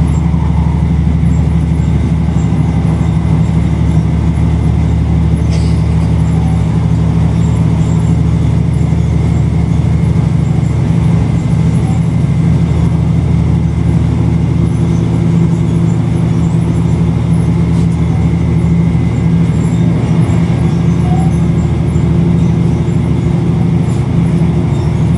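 Steady low engine and road drone heard from inside a moving vehicle, an even hum with no change in speed or pitch.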